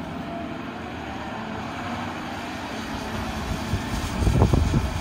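Caterpillar hydraulic excavator's diesel engine running steadily as it digs, dumps and swings, with a louder low rumble near the end.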